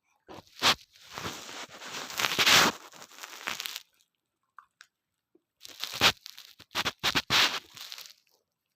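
Loud crinkling and crunching handling noise in two bouts, about three and a half and two and a half seconds long, with sharp cracks among them.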